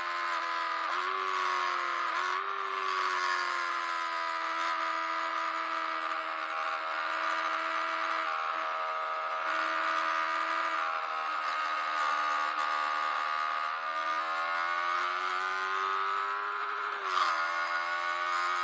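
Yamaha R3's parallel-twin engine with an aftermarket exhaust running hard at high revs, heard from on the bike over wind rush. The pitch dips sharply at gear changes about one and two seconds in, sags slowly through a long corner, climbs again, then drops sharply at another shift near the end.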